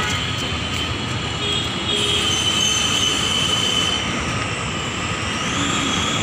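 Steady din of motor traffic, auto-rickshaws and scooters, with thin high whining tones running through the noise.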